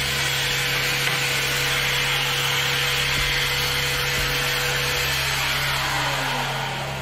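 Electric random orbital sander running steadily.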